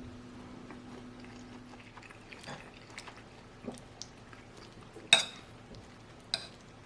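Eating with a spoon from a plate: faint chewing and small taps, then two sharp clinks of the spoon against the plate, about five seconds in and again a second later, the first the louder.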